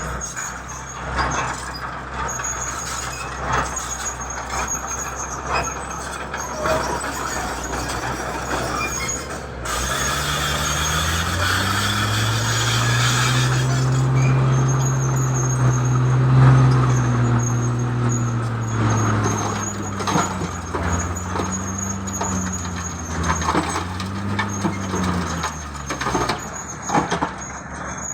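A heavy construction machine's diesel engine working, with metal clanks and squeals throughout. The engine revs up about ten seconds in and holds high for several seconds, then drops back and revs briefly twice more.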